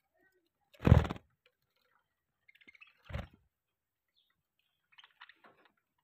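Budgerigars in an aviary, with a few faint chirps. Two short loud bursts of noise come about one and three seconds in, the first the louder.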